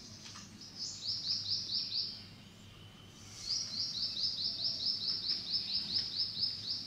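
A bird calling with quick, high repeated notes, about four to five a second, in two runs: a short one about a second in and a longer one that starts halfway through.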